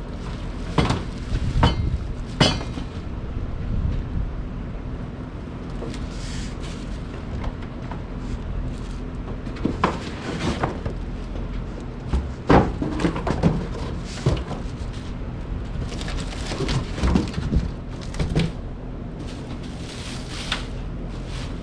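Irregular knocks, clatters and rustles of an oven's parts and packaging being handled and unpacked, over a steady low hum.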